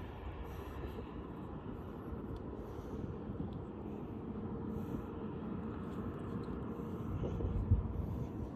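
Steady low outdoor background rumble, with a short louder bump about three-quarters of the way through.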